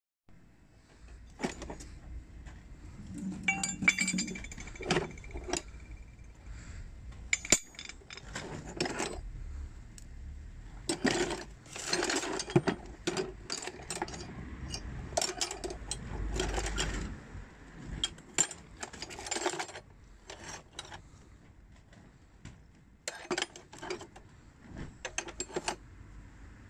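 Old rusty metal hand tools (pliers, wrenches, hammers) clinking and clattering against each other in a cardboard box as they are picked through by hand: irregular clinks and knocks, one or two ringing briefly, thinning out near the end.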